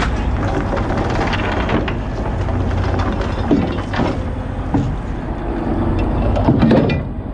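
Boat engine running steadily under wind and water noise, while an anchor and its chain are hauled up over the bow, knocking and scraping against it several times, loudest near the end.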